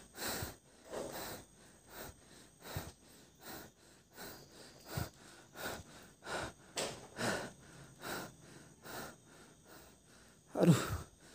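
A person breathing heavily in quick, short breaths, about two a second, with a louder voiced breath near the end.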